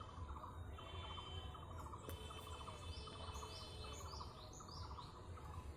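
Faint outdoor ambience of small birds chirping: many short chirps throughout, with a run of about four higher calls a little past halfway, over a low rumble.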